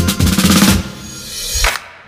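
Background music with drums: a drum roll builds, then about a second in gives way to a rising whoosh, and the music drops out briefly near the end.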